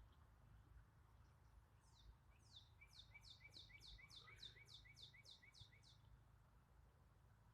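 A songbird singing faintly: a run of about a dozen quick, high, down-slurred notes, about three a second, starting about two seconds in and stopping about six seconds in, over a steady low background rumble.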